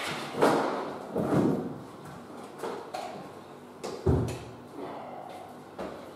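Internal door slabs being handled: one is slid off a stack on the floor and lifted upright, giving scraping and a series of knocks and thuds, the loudest a heavy low thump about four seconds in.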